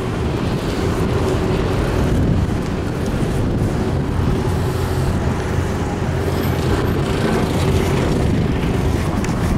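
Steady road traffic noise with a low hum of engines running through it.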